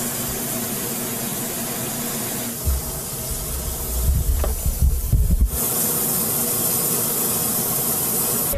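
Disinfectant fogging machine spraying with a steady hiss. About two and a half seconds in, a low rumble with a few knocks joins it for about three seconds, and after that the hiss turns brighter.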